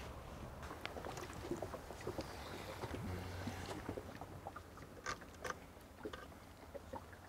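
Water lapping against the hull of a small fishing boat, with scattered light splashes and clicks over a faint steady low rumble.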